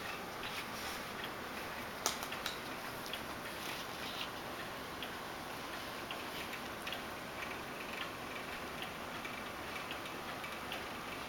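Puppies playing and wrestling with toys: scattered, irregular soft clicks and taps over a steady hiss, with one sharper click about two seconds in.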